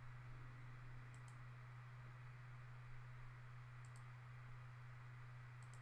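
Near silence: room tone with a steady low hum, broken by three faint double clicks.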